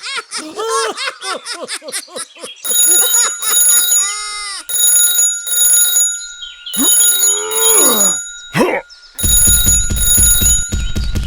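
Bell-like alarm ringing in pairs of short bursts separated by brief pauses, with high squeaky voice-like squeals at the start and between the rings. A low buzz joins the ringing near the end.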